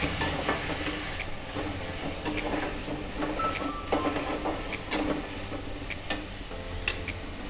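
A perforated steel skimmer stirring chopped onions, tomatoes and capsicum around a metal kadai, with irregular clinks and scrapes of the spoon on the pan. Under it is a light sizzle of the vegetables sautéing in butter.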